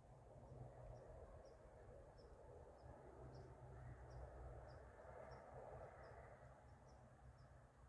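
Near-silent outdoor ambience with faint, short, high chirps repeating evenly about twice a second, like an insect or a small bird calling.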